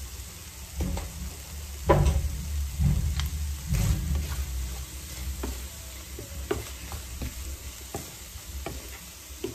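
Wooden spatula stirring chicken livers in a nonstick frying pan, scraping and knocking against the pan at irregular intervals while the livers sizzle. The stirring is busiest about two to four seconds in.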